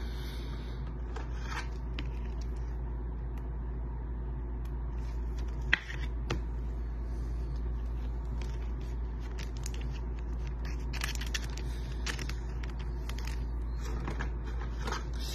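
Trading cards being handled and shuffled, faint rustling and light plastic clicks over a steady low hum, with one sharp click about six seconds in.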